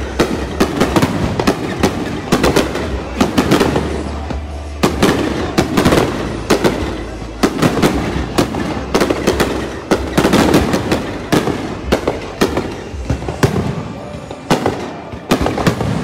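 Aerial fireworks display: a rapid, continuous run of bangs and crackling bursts, several a second.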